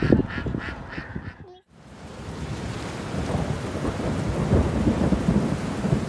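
Heavy rain falling steadily on water and plants, with a low rumble. It fades in after a brief drop-out about a second and a half in. Before the drop-out there are a few short duck quacks.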